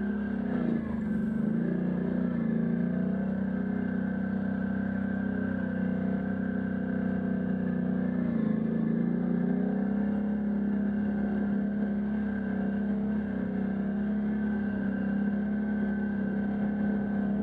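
Can-Am Outlander ATV engine running at a steady trail-riding pace, its pitch dipping briefly about a second in and again around eight seconds in as the throttle eases and picks back up.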